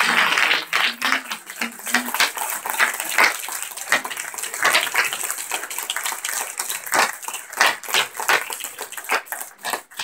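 A run of irregular sharp clicks and knocks, loudest in the first second or so, then scattered unevenly.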